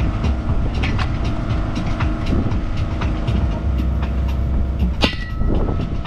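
Steady low machine rumble with a constant hum, over bricklaying work on concrete blockwork: light scrapes and ticks, and one sharp metallic clink with a short ring about five seconds in.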